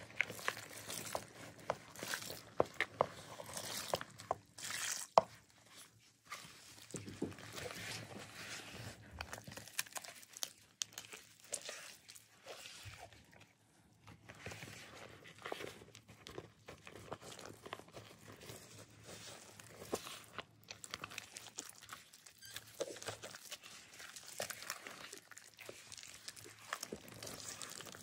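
A rubber-gloved hand crumbling and crushing dry gym chalk powder in a bowl, then mixing it with water into a wet, bubbly paste: irregular crunching, crackling and scraping with scattered sharp clicks.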